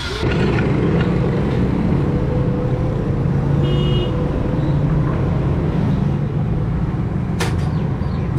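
Steady low machine rumble, with a brief squeak midway and a sharp knock near the end.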